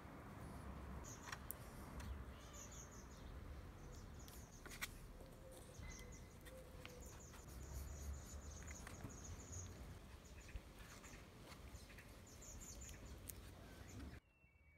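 Quiet outdoor ambience: a low rumble, repeated high-pitched chirping through most of it, and a few light clicks from wooden spacer blocks being handled. It cuts to near silence near the end.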